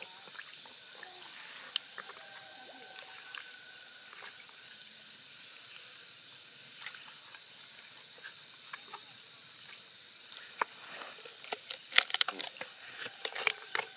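Hands handling a large opened freshwater mussel shell and prying its halves apart, making faint scrapes and clicks. In the last few seconds comes a cluster of sharper cracks and knocks of shell. A steady faint high hiss runs underneath.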